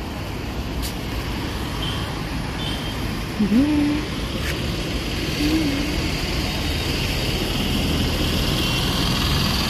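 Steady road traffic noise. A brief low gliding tone about three and a half seconds in is the loudest moment, and a shorter one follows about two seconds later.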